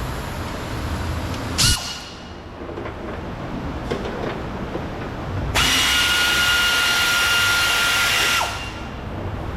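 Cordless drill/driver backing out a screw: a short spurt about two seconds in, then a steady run of about three seconds with an even whine that stops abruptly.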